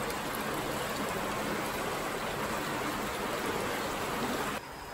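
Floodwater rushing steadily along the floor of a flooded pedestrian underpass that has been turned into a stream. The sound cuts off abruptly near the end, giving way to a quieter rush.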